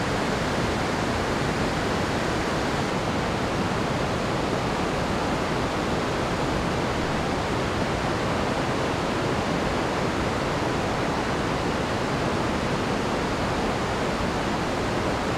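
Floodwater rushing through rapids and over a waterfall: a steady, even rush of water noise.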